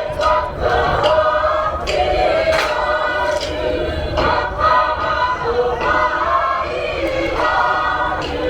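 A large group singing together in choir-style harmony, holding long notes, with sharp percussive hits roughly once a second.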